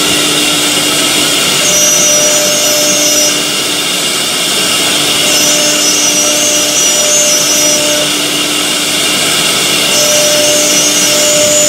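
Multi-head CNC router cutting grooves into a fibreboard panel: a steady spindle whine over the rush of dust extraction, with a higher cutting tone that comes in and drops out three times.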